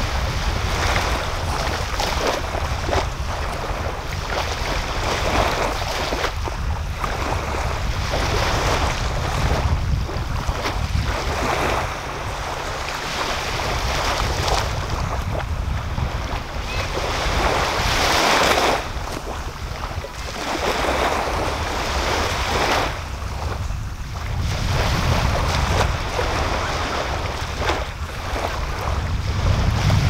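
Small waves breaking and washing up a sandy beach, swelling and fading every few seconds, over a steady low rumble of wind on the microphone.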